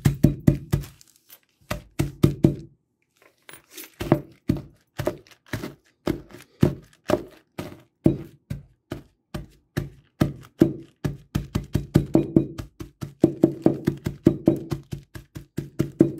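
A ceramic mug pounding a sealed plastic bag of Oreo cookies against a countertop, crushing them into crumbs. Rapid repeated knocks come in bursts, with short pauses near the start, and grow denser toward the end.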